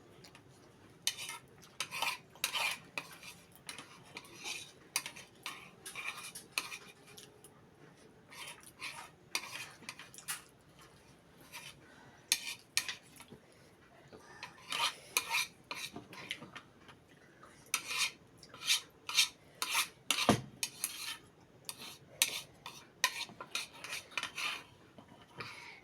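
Cutlery clinking and scraping against dishes during a meal, in irregular short clicks, with one dull thump about twenty seconds in.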